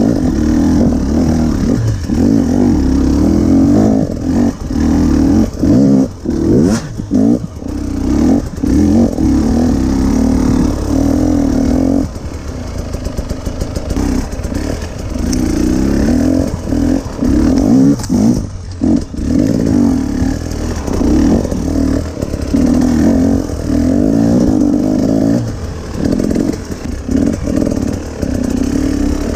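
2020 KTM 250 EXC TPI two-stroke single-cylinder enduro engine ridden hard off-road, revving up and down as the throttle is opened and chopped over and over. About twelve seconds in it drops to a low, choppy pulse before picking up again, and it falls briefly off the throttle twice.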